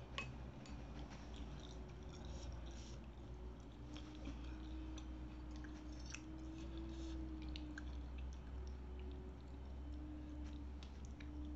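A person chewing baso aci (tapioca meatballs) close to the microphone, with many small, scattered clicks and crunches. A faint steady hum runs underneath.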